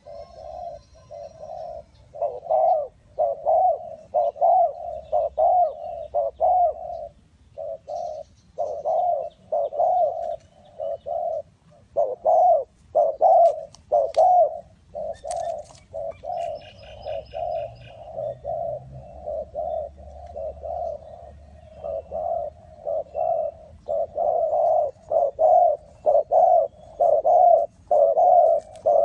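Spotted dove cooing over and over in a steady run of short low coos. A few faint chirps from other small birds come in about halfway through.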